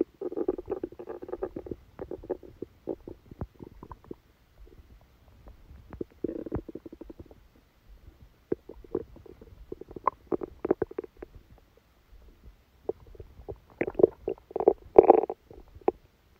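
A person's stomach gurgling and rumbling in irregular bursts, with the loudest burst about a second before the end. The gurgling comes with a stomachache after a large dinner.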